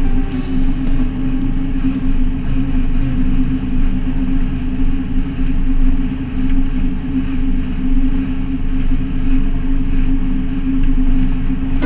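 Fishing boat's engine running steadily under way at speed, a constant low drone.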